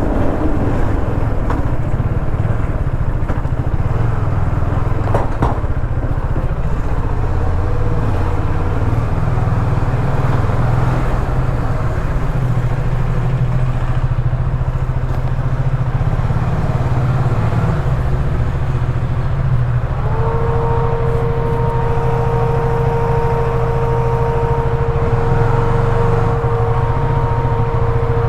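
New KTM motorcycle engine running steadily through its stock exhaust, with no big revs. A steady pitched tone joins about twenty seconds in.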